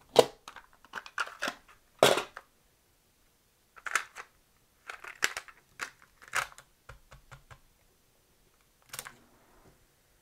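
Sharp plastic clicks and clacks of a cassette being handled and set into the open tape transport of a Sony TC-120 cassette recorder. There are about half a dozen separate knocks over several seconds, with quiet between them.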